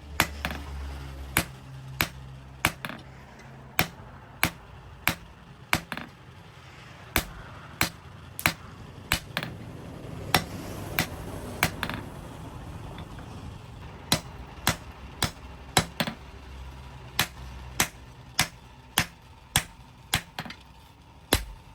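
Blacksmith's hammer striking a steel sword blade on an anvil, a sharp ringing blow about twice a second, as the blade is forged. A low hum rises and falls underneath.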